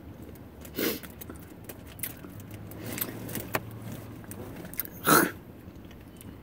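Light clicks and rustling from small things being handled, with a short, louder burst of noise about five seconds in.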